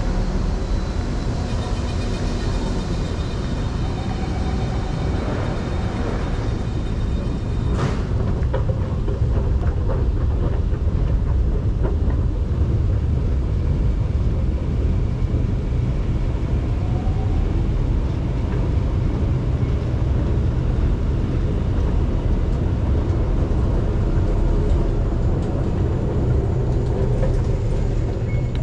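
Steady low rumble of an underground MRT station and a moving escalator. For about the first eight seconds, several high steady tones from the MRT train pulling out of the platform sound over it, and a single sharp click comes about eight seconds in.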